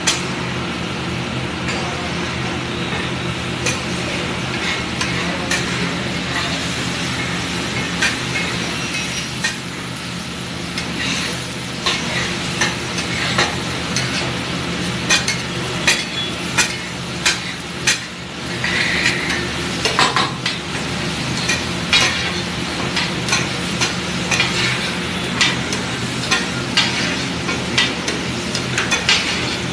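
A metal spatula scraping and clacking on a large flat griddle (tawa) as a big mound of pav bhaji is stirred and mashed, over a steady sizzle and low hum. The sharp scrapes and knocks come more often in the second half, about one or two a second.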